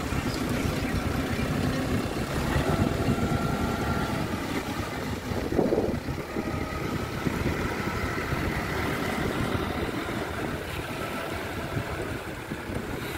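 Caterpillar 416D backhoe loader's diesel engine running steadily as the machine drives past, growing a little fainter near the end as it moves away. A brief louder bump comes a little before halfway.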